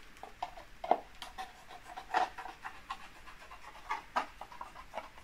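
Small scissors snipping through a plastic milk bottle, with irregular short snips and crackles of the thin plastic as it is cut and handled.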